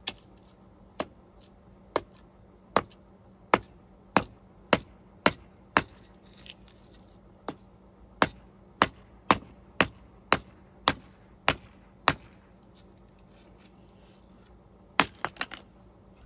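Folding camp shovel chopping squared timber into kindling: sharp strikes, about two a second, then a pause and a quick run of four strikes near the end.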